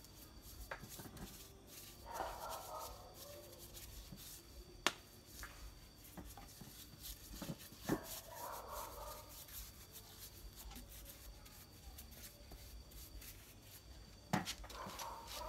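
Quiet handling sounds of a small brush dabbing and rubbing polish onto a carved wooden statue, with a few sharp clicks.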